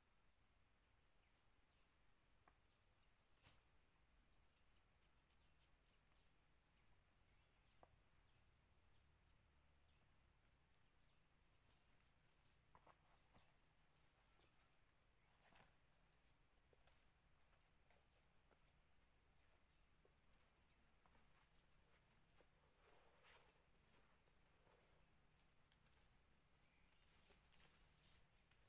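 Near silence with faint insect chirping: a thin, steady high trill that pulses rhythmically in places, with a few faint clicks and rustles.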